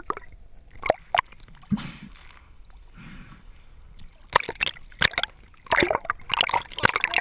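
Sea water splashing and sloshing around the camera as it breaks in and out of the choppy surface. The short bursts are sparse at first and come thickly in the second half, with muffled underwater stretches between them.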